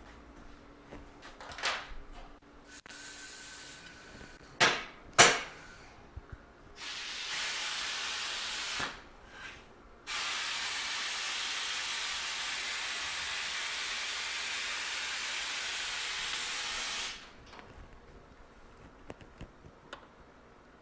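A few sharp knocks, two close together about five seconds in, then a steady pressurised hiss of spray in two stretches: about two seconds, then after a short gap about seven seconds, stopping abruptly.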